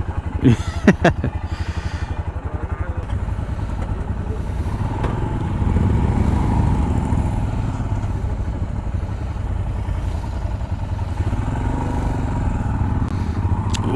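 Royal Enfield Himalayan BS6's single-cylinder engine running with an even low thump, picking up and running louder from about five seconds in as the bike moves off. A couple of short sharp sounds come about half a second and a second in.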